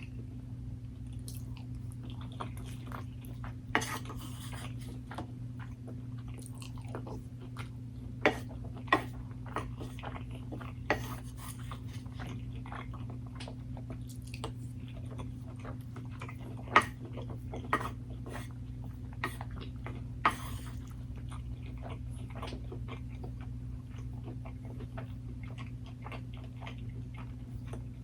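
Close-miked chewing and biting of food, with wet clicks and smacks and several sharper clicks, over a steady low hum.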